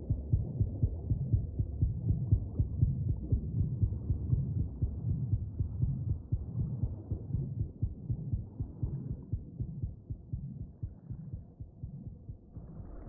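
Film sound-design heartbeat, muffled low thumps at about two a second, laid over an underwater scene where an oxygen warning is showing. The beats weaken toward the end, and music comes in near the close.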